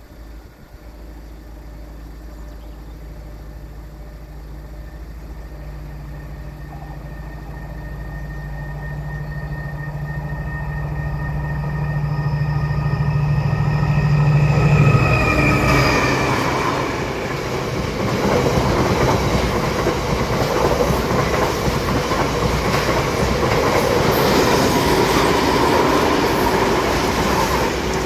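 A Class 70 diesel-electric freight locomotive (GE PowerHaul V16 engine) approaching, its engine note growing steadily louder and dropping in pitch as it passes about halfway through. After it, the tank wagons it hauls roll by with a steady rumble and clickety-clack of their wheels.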